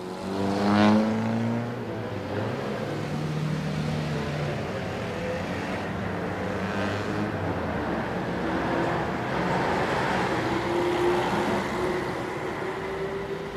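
A motor vehicle's engine running, loudest about a second in, with a tone that rises slowly through the second half.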